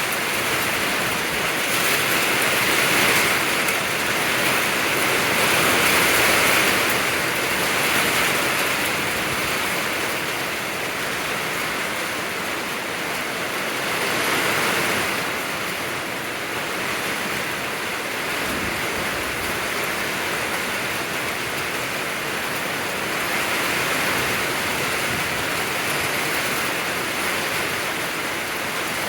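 Heavy rain pouring down in a steady rush, swelling louder a few times.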